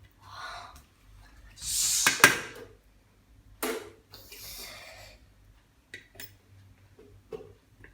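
Handling noises: several bursts of clattering and rustling, the loudest about two seconds in, then a few small clicks.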